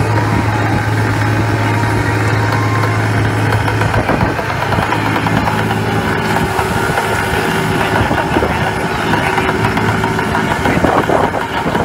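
Crab boat's engine and deck machinery running with a steady low hum, joined by the rush of the sea along the hull. About four to six seconds in, the hum weakens and the sound turns rougher and noisier.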